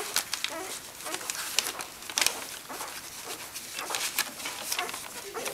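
Newborn Welsh Springer Spaniel puppies nursing, giving short squeaks and whimpers several times, over frequent small clicks and rustles from the squirming litter on newspaper bedding.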